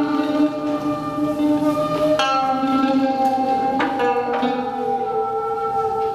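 Guqin, the Chinese seven-string zither, being played solo: plucked notes ring on at length, with a few fresh plucks, and one note slides slowly down in pitch as it sustains.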